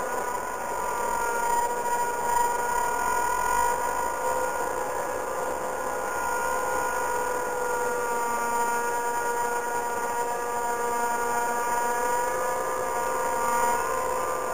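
BOMAG BW 213 DH padfoot single-drum roller running while compacting soil, heard from inside its cab: a steady machine whine with a fairly high pitch over the running noise.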